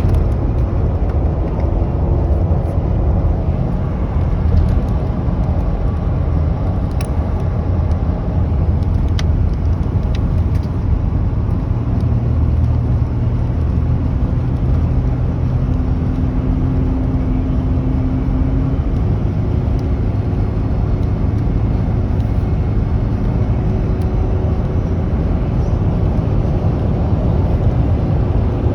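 A car being driven: steady engine and road rumble heard from inside the cabin, with a few faint clicks about a third of the way in.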